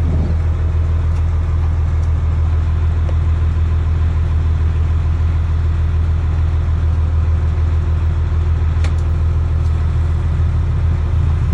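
Fire truck engine idling with a steady low drone, and a faint click about nine seconds in.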